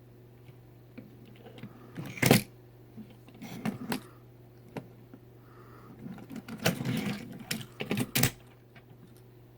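Plastic Plarail toy train models being handled: scattered clicks and rattles with a sharp knock about two seconds in and a denser run of clicks from about six to eight seconds, over a steady low hum.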